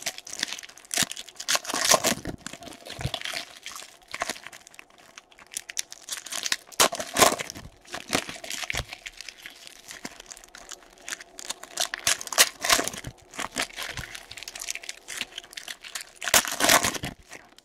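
Plastic trading-card pack wrappers and box packaging being torn open and crinkled, in irregular rustling bursts.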